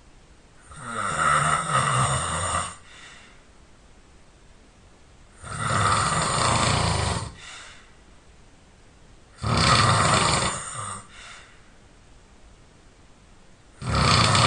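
A sleeping person snoring loudly, with long snores about two seconds each coming roughly every four seconds and quiet breathing between them.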